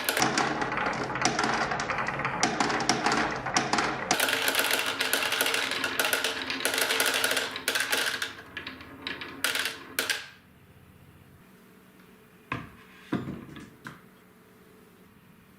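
A crowd of marbles rolling down a wooden slope track together, a dense clattering rattle that thins to scattered clicks after about eight seconds and stops about ten seconds in. A few lone clacks follow near the end.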